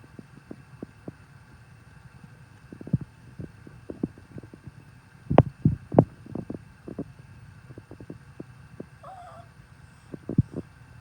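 Washing machine running, with irregular low thumps and knocks and the loudest cluster about halfway through; a Chihuahua gives a short whine near the end.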